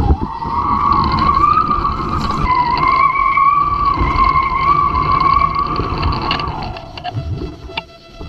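A steady whistling tone that wavers slightly in pitch, over a low wind rumble; the whistle slides down and fades about six and a half seconds in.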